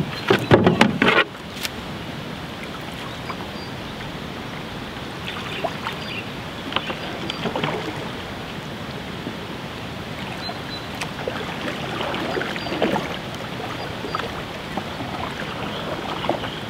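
Knocks and thumps on the wooden hull of a cedar strip canoe as the paddler climbs in and settles, then soft paddle splashes now and then over a steady rush of flowing river water.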